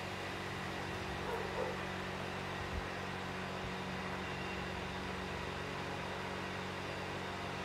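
Steady electric-motor hum and whir of a woodworking machine running without cutting. There are a couple of brief soft knocks in the first three seconds.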